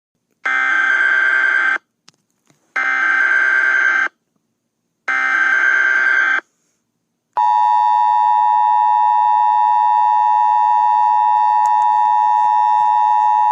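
Emergency Alert System tones: three bursts of SAME header data, each a little over a second long with about a second between them. About seven seconds in comes the steady two-tone EAS attention signal, which marks the start of an emergency alert broadcast.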